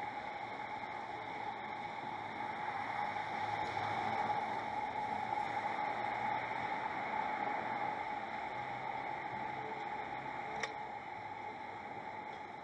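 Steady hiss of outdoor ambient noise through a live camera's microphone, with a constant hum-like band, growing slightly louder for a few seconds in the middle. A single short click comes about ten and a half seconds in.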